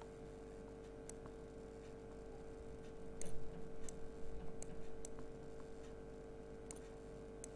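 Computer mouse: a handful of sharp button clicks, and the mouse sliding and scratching on the desk between about 3 and 6 seconds in as a letter is drawn on screen, over a steady low hum.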